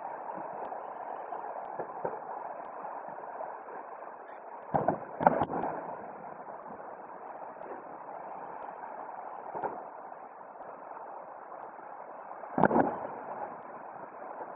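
Distant fireworks shells going off over a steady background hiss. Two booms come close together about five seconds in, a smaller one near ten seconds, and the loudest near the end.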